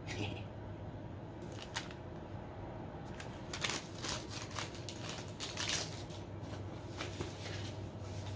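A folded paper leaflet being handled and unfolded, with quick crinkling rustles that come thick and fast from about three seconds in, over a steady low hum.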